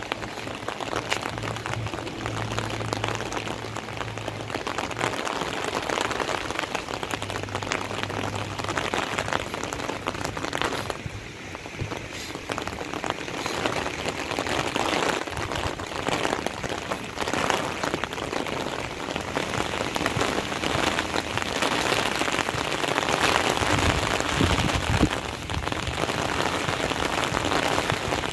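Steady rain falling on wet ground and floodwater, a dense spatter of drops that eases briefly about eleven seconds in.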